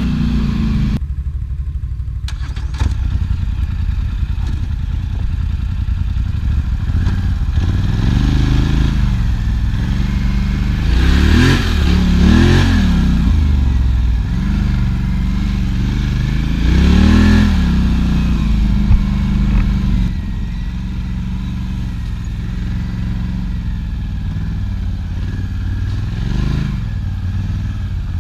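Quad bike (ATV) engine running under way, its pitch climbing and falling several times as it is revved, most strongly about a third of the way in, near the middle and again near the end.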